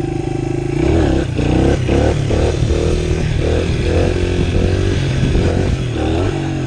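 A 1999 Honda XR100 dirt bike's small single-cylinder four-stroke engine running under way. Steady at first, then from about a second in its pitch rises and falls again and again as the throttle is worked.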